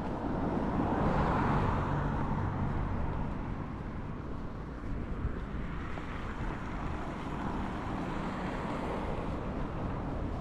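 Low rumble of a passing vehicle, swelling about a second in and easing off over the next few seconds.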